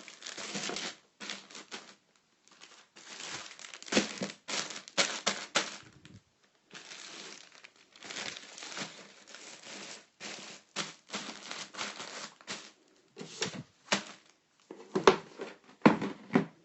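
Packaging and clothes being handled, crinkling and rustling in irregular bursts, with a few sharp knocks.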